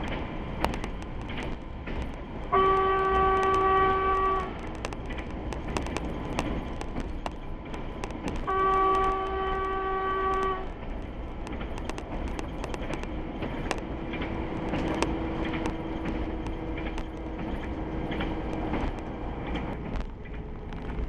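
Y2 diesel passenger train's horn sounding two steady, single-pitched blasts of about two seconds each, a few seconds apart: a warning for unguarded level crossings. Under them runs the train's steady running noise with many sharp clicks.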